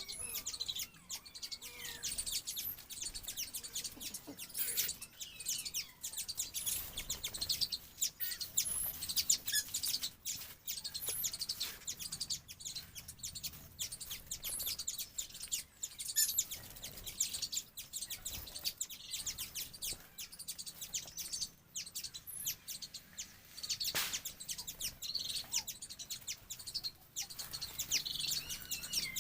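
Many small birds chirping and twittering: a dense stream of short, high-pitched chirps that overlap.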